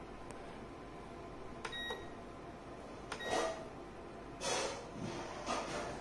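Honeywell HCE322V ceramic tower heater running with a faint steady hum, its control panel beeping twice, about a second and a half apart, as the settings are changed. Several short rushing noises come in the second half.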